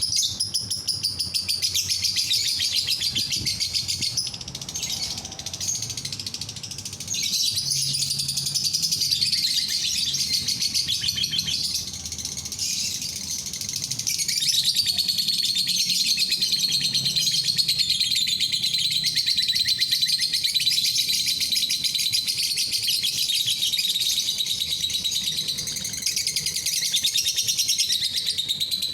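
Lovebird chattering in a fast, high-pitched, continuous trill, easing off briefly twice: about four seconds in and again about twelve seconds in.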